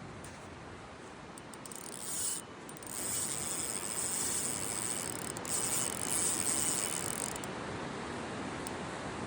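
Fishing reel being cranked, a steady ratcheting whir that sets in a couple of seconds in and stops a couple of seconds before the end, over a steady rush of river water.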